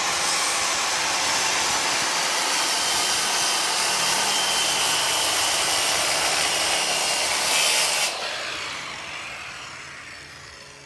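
Corded circular saw cutting through a sheet of plywood, running loud and steady. About eight seconds in the cut ends and the saw is let go, its blade winding down and fading.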